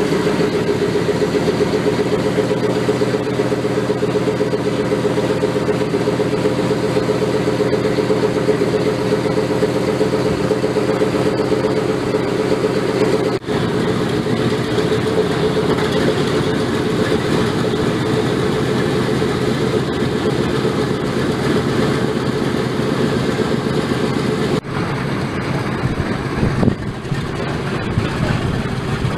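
Boeing B-17G's Wright R-1820 Cyclone nine-cylinder radial engines running steadily at low power after start-up. The sound breaks off sharply for a moment about 13 seconds in and again about 25 seconds in, and is a little quieter after the second break.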